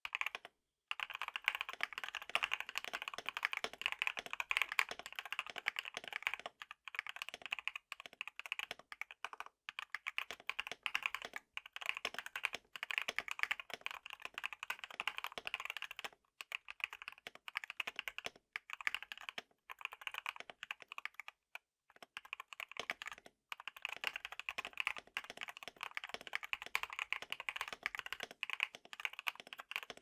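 Fast, continuous typing on a KBD67 Lite R3 mechanical keyboard with lubed NK Cream linear switches and lubed Durock screw-in stabilizers, broken by a few brief pauses. The case is modded with case foam and two layers of tape, which gives it a super thocky sound.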